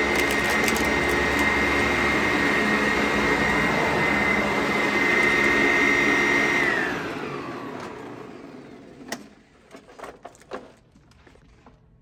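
Two Sanitaire upright vacuum cleaners running together with a steady high whine, then switched off about seven seconds in, their motors winding down in a falling whine. A few sharp clicks and knocks follow.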